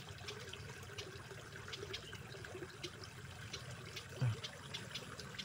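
Faint, steady trickling of water in a rice-field ditch, with scattered tiny clicks and one brief low thud about four seconds in.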